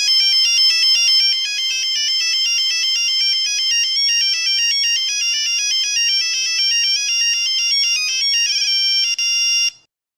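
Old mobile-phone ringtone: a fast melody of buzzy electronic beeps that jumps quickly from note to note, with a brief break near the end before it cuts off.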